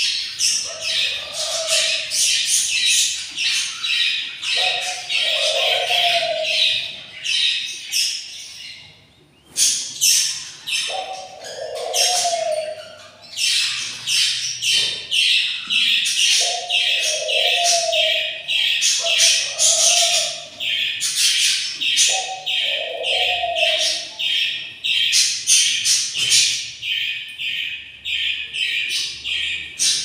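A brood of budgerigar chicks, about 19 days old, chirping rapidly and almost without pause. A lower, drawn-out call comes every few seconds, with a brief lull about eight seconds in.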